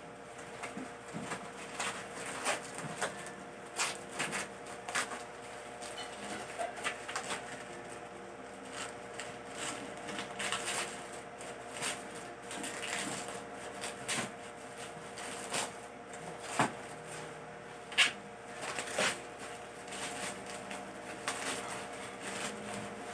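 A parcel being handled and opened: irregular rustling and crackling of packaging with sharp clicks now and then, over a faint steady hum.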